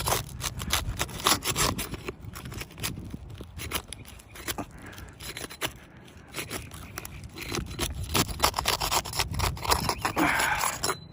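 Scraping and clicking of a tool being worked under roof shingles, prying and lifting them to reach the nails beneath, in a run of irregular scrapes and sharp clicks.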